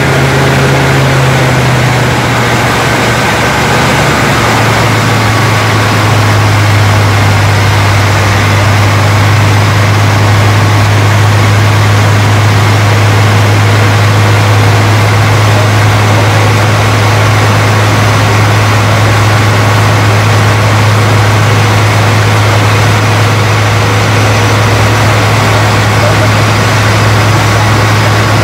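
Single-engine light seaplane heard from inside the cockpit: the propeller engine's loud, steady drone with rushing noise over it. The engine note drops a little a few seconds in, then holds steady.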